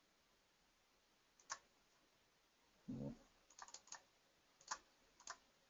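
Faint computer keyboard and mouse clicks over near silence: a single click, a quick run of clicks past the middle, then a couple more, with a soft low thud about halfway through.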